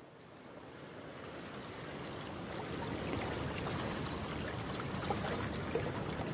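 Rushing water, an even wash that fades in from silence and grows steadily louder.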